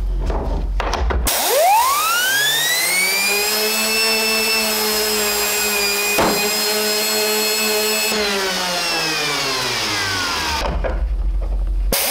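Fully 3D-printed two-stage centrifugal compressor spun up by a compressed-air blow gun: a whine sweeps sharply up in pitch, holds high and steady with a hiss of air while it blows up a balloon, then falls away as the rotor winds down. A single sharp pop about six seconds in, and the whine starts rising again at the very end.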